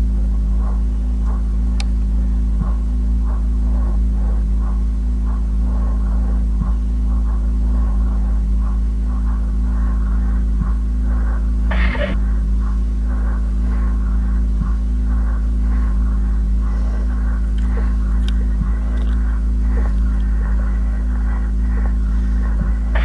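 Live electronic improvisation: a loud, steady low drone with sustained humming tones, overlaid by a dense flicker of short crackling pulses higher up. A brief louder burst comes about halfway through and another at the end.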